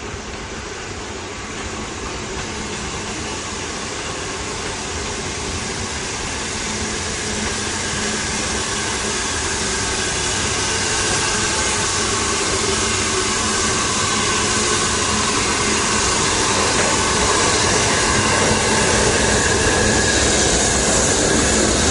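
BR Standard Class 9F 2-10-0 steam locomotive 92214 running tender-first into a station with its coaches. It makes a steady rushing rumble that grows louder as it draws close and passes alongside.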